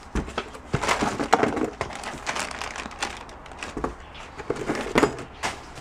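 Hands rummaging through a box of paperwork and small odds and ends: irregular rustling and crinkling with a few short knocks of objects being moved.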